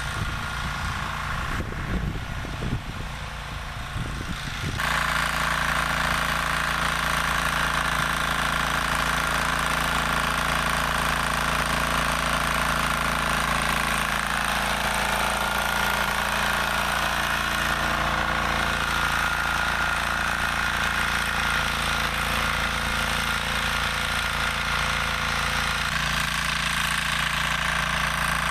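Walk-behind tractor's engine running steadily under load while it drives a rotary tiller through the soil. The sound becomes suddenly louder and steadier about five seconds in.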